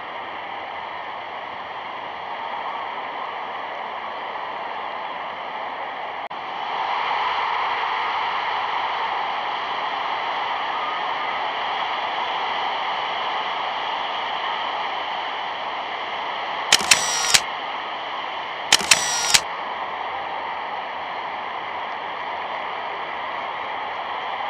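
Steady hiss of an old newsreel soundtrack, stepping up in level about six seconds in. Two short loud bursts, about two seconds apart, come near the end.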